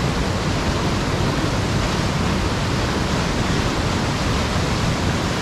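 Waterfall and rocky river cascade, a steady, loud rush of falling water.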